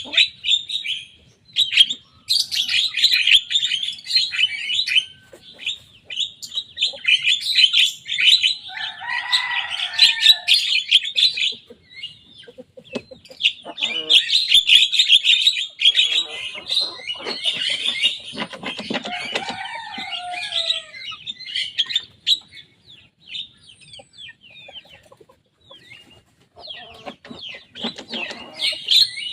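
Young Javan myna singing a fast, scratchy chattering song in long bouts with short pauses, mixing in a few lower, sliding whistled phrases.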